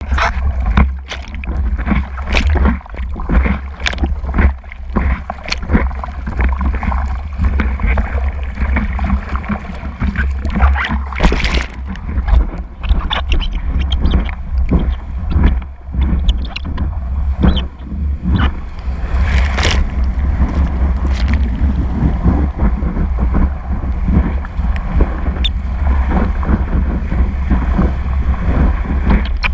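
Water rushing and splashing around a surfboard as it rides a wave, picked up by a microphone on the board: a constant deep rumble of water and wind buffeting, broken by many irregular sharp splashes, with a louder cluster around the middle.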